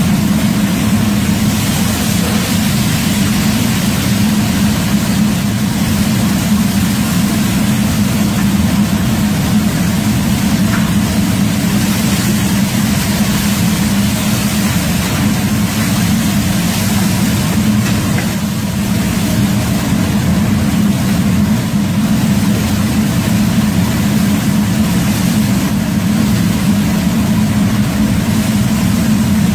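Steady roar of a commercial wok stove's burner and blower fan under a large wok of bubbling sauce, a loud, even drone that holds throughout.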